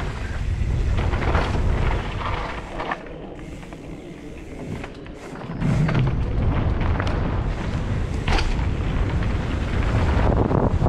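Wind buffeting the camera microphone and mountain bike tyres rumbling over a dirt trail, with knocks and rattles from the bike over rough ground. The rumble drops away for a couple of seconds near the middle and comes back with a thump.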